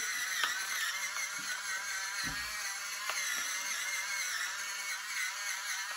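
Electric pepper grinder running with a steady whirring whine as it grinds peppercorns, with a few faint knocks.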